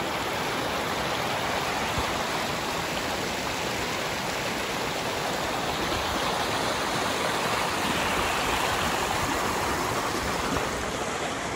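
Steady rushing of water from a waterfall, an even continuous roar of falling water.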